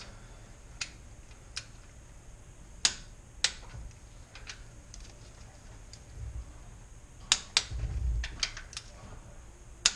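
Scattered light clicks and taps of hands handling metal and plastic engine parts, with a couple of soft low thumps near the end.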